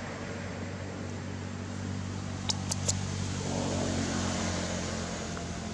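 A motor running steadily with a low, even hum. Three quick sharp clicks come about two and a half seconds in.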